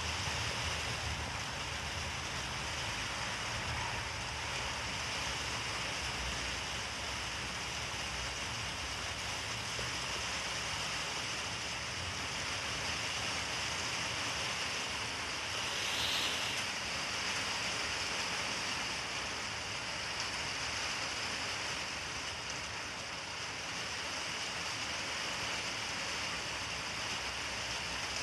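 Steady outdoor hiss with a faint, steady high-pitched hum over it and a brief swell about halfway through.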